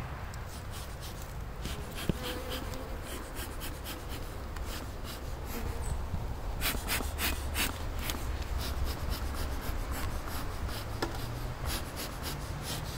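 Beekeeping smoker's bellows being squeezed again and again, a string of short airy puffs that come faster and stronger from about halfway through. The smoker has gone out.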